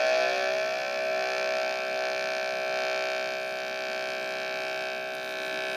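Lightsaber idle hum from a Teensysaber sound board playing through the hilt's speaker: a steady, buzzing electronic hum with a slow shimmering beat.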